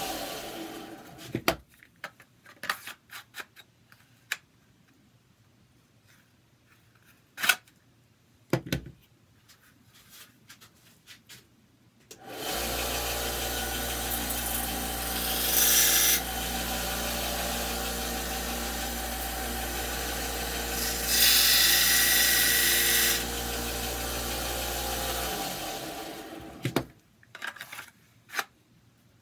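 An electric sanding tool running and winding down, then starting again for about thirteen seconds; twice it turns louder and harsher as the Kydex holster is pressed against it to take off a little material. Scattered clicks and knocks of handling fall between the runs and after it stops.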